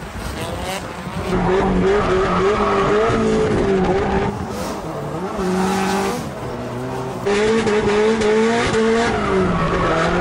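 Drift car engine held at high revs, its pitch rising and falling with the throttle, over tyre squeal and skidding. The sound jumps abruptly about one and a half, four and seven seconds in, as one short clip gives way to the next.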